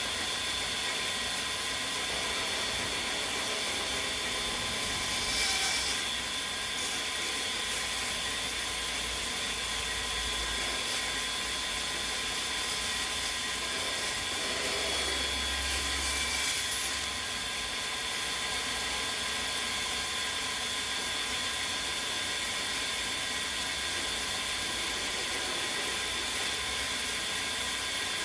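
Electric drill running steadily as the drive of a homemade wood lathe: an even hiss with a fixed motor whine. It swells briefly twice, about five seconds in and again near the middle.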